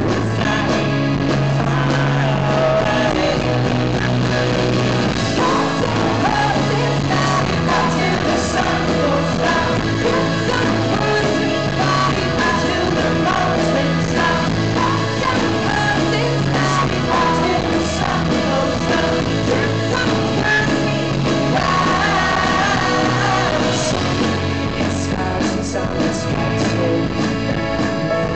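Live indie folk-pop band playing a song with singing over guitars and a stepping bass line, as heard at a concert.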